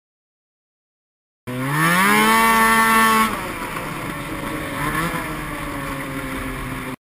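After a second and a half of silence, a 500 cc two-stroke snowmobile engine comes in revving up sharply and holds high revs for about a second. It then eases back to a steadier, lower running note with a short blip of throttle, before the sound cuts off abruptly near the end.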